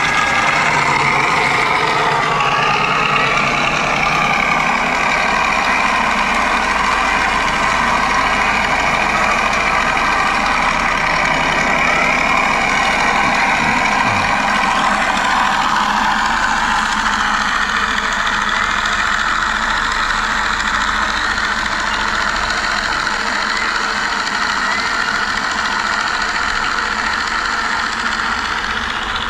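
An RC Corsair's onboard engine sound effect plays a simulated radial piston engine, mixed with the model's electric motor and propeller. It runs steadily at low power and grows gradually fainter over the second half.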